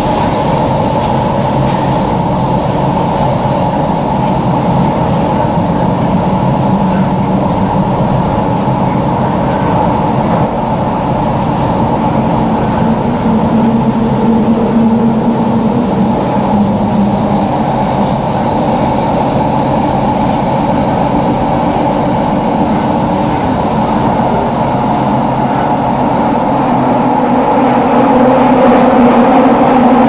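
Kyoto Municipal Subway Tozai Line train running through the tunnel, heard from inside the car: a steady loud rumble of wheels and running gear with a faint high steady whine. It grows somewhat louder near the end.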